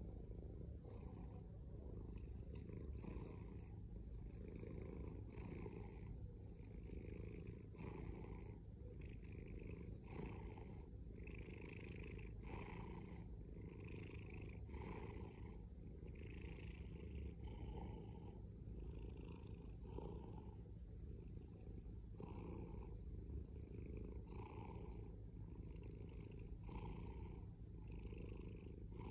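Domestic cat purring loudly and continuously while being scratched on the head, the purr swelling with each breath in and out about once a second.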